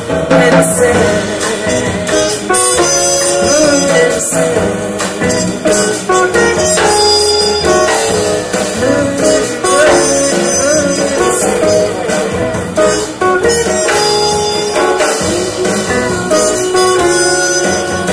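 A small jazz band playing live, with a trumpet carrying the lead over piano, double bass and guitar.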